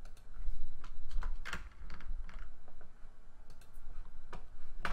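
Typing on a computer keyboard: a run of separate keystrokes at an uneven pace, with short pauses, as a line of CSS code is edited.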